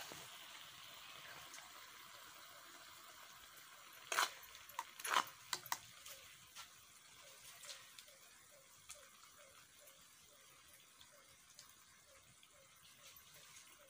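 Quiet kitchen handling sounds over a faint steady hiss: a steel ladle knocks against the kadhai twice, about four and five seconds in, followed by a few softer clicks as masala is spooned into slit brinjals.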